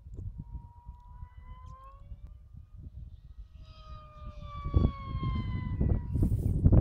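Electric RC plane's brushless motor and 4.7x4 propeller whining in flight, the pitch gliding upward and then falling steadily as the plane passes. A low rumbling noise grows louder in the second half.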